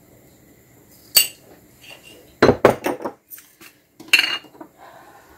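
Kitchen clatter while salting soup: a metal spoon clinking against a stainless-steel soup pot and crockery being set down on the counter. A sharp clink about a second in, a quick run of knocks around two and a half seconds, and another knock about four seconds in.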